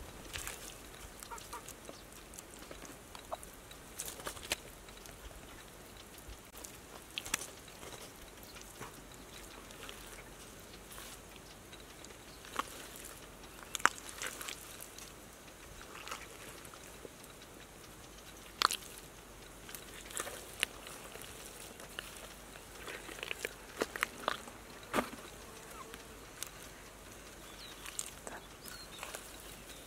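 Bare hands breaking up clods of dried, cracked mud and scooping the wet mud beneath, making scattered sharp cracks and crunches.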